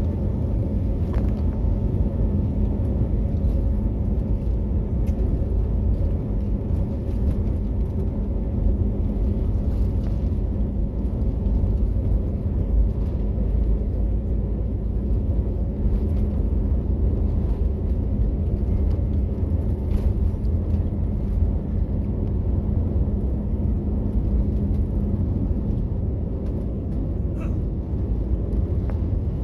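Cabin noise of an Airbus A320-family jet airliner on its takeoff roll: the engines at takeoff thrust with a steady low rumble from the wheels on the runway, and several steady engine tones over it. The rumble eases slightly near the end as the aircraft rotates.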